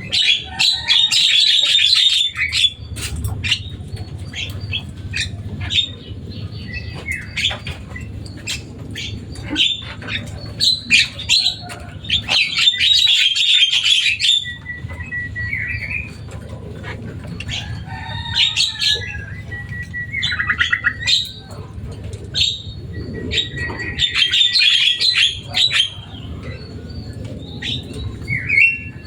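Javan myna (jalak kebo) calling loudly: three bursts of harsh, rasping chatter, with clicks and short whistled notes in between.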